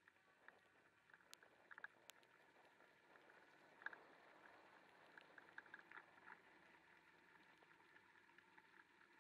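Near silence: faint steady noise of a scooter moving over a wet road, with scattered light ticks.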